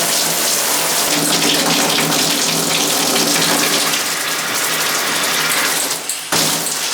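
Water spraying steadily from an Oxygenics Evolution 34588 shower head, an even hiss that drops briefly about six seconds in before coming back.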